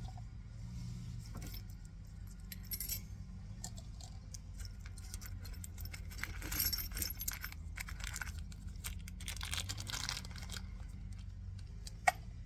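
Loose metal screws, bolts and small parts clinking and rattling in a tub as they are rummaged through, in several bouts, with one sharp click near the end, over a steady low hum.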